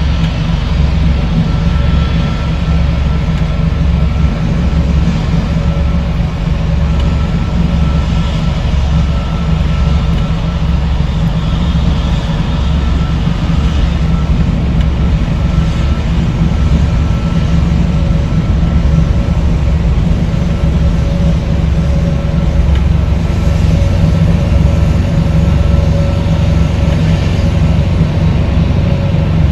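Jet airliner's engines at taxi power: a steady low rumble with a faint high whine above it, growing a little louder near the end as the aircraft comes closer.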